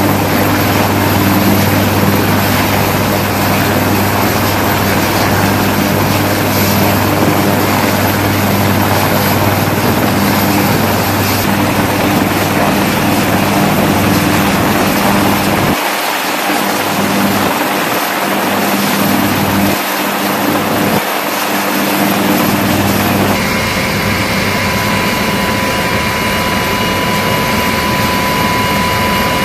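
Military helicopters running on deck: turbine engines and turning rotors make a loud, steady noise with a low hum. Partway through, the sound changes and a steady high whine comes in.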